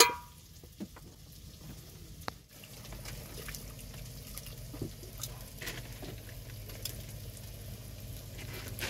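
Water poured from a plastic jerrycan in a thin stream, splashing over a tomato being washed into a metal basin of chopped vegetables. It starts about two and a half seconds in, with a few light knocks.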